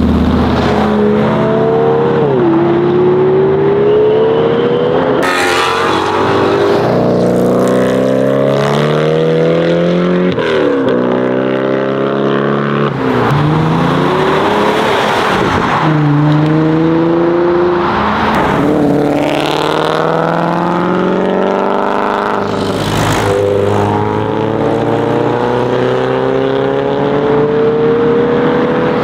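Car engines revving and accelerating away one after another, their pitch climbing and falling back repeatedly through the stretch.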